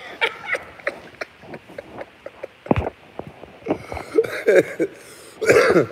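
A man laughing under his breath in short chuckles and breathy puffs, with a louder burst of laughter near the end. There is one sharp thump about three seconds in.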